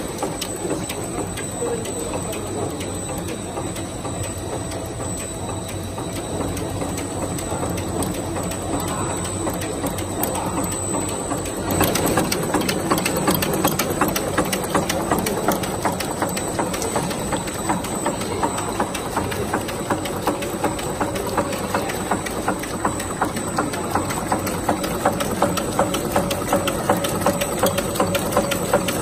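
Chewing gum production line machinery running steadily. About halfway through, a louder rapid, even clicking of a machine's moving parts sets in and keeps going.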